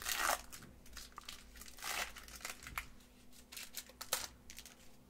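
Foil wrapper of a trading-card booster pack crinkling and tearing as it is peeled open by hand, in irregular crackly bursts with small clicks. The loudest burst comes at the start and another about two seconds in.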